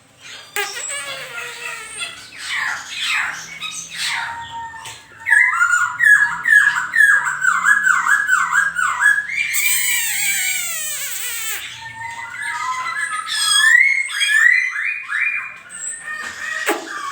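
A songbird singing a varied song: quick sweeping notes, then a fast run of repeated notes lasting about four seconds, a high buzzy trill, and another run of repeated notes.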